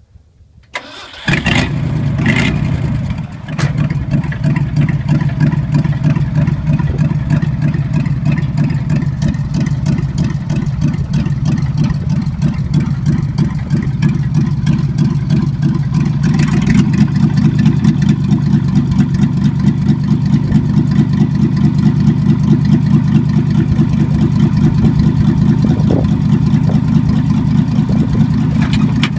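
The engine of a 1965 Ford 600 truck cranking over and catching about a second in, then running steadily. From about halfway through it runs a little louder.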